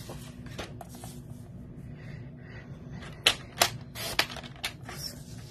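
Cardstock rustling as it is positioned on a paper trimmer, then several sharp clicks about three seconds in as the trimmer's blade carriage is pressed down and slid to cut the card.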